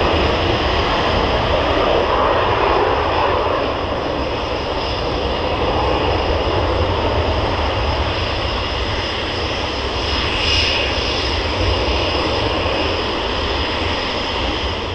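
Panavia Tornado IDS's two RB199 turbofans at full afterburner through the take-off run and lift-off: a loud, steady jet rumble with a high whine over it, easing slightly about four seconds in.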